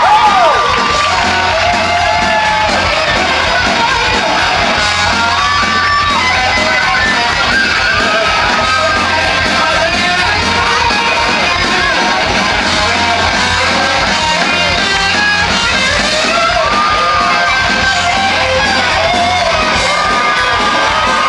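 Live rock band playing loudly, with an electric guitar playing a lead line of bending notes over a fast, steady drum beat.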